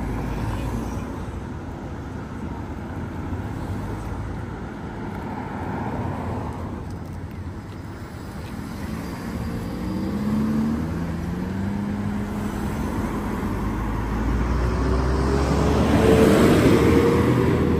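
Road traffic with car engines running at low speed. About ten seconds in an engine note rises, and near the end a vehicle drives close past, its engine note climbing, which is the loudest moment.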